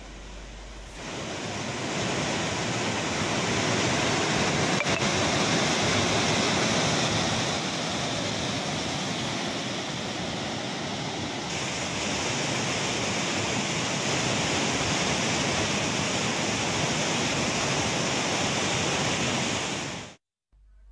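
Musi River floodwater rushing in a white-water torrent: a steady, loud rush of water that shifts in tone about halfway through and cuts off abruptly just before the end.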